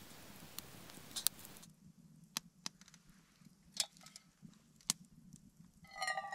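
Hot water hissing as it is poured from a pot into a steel camp mug, cut off after about a second and a half. Then a few sharp clicks, and music comes in near the end.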